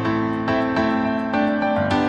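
Background music: a gentle keyboard melody of short notes that change a few times a second over a light regular tick.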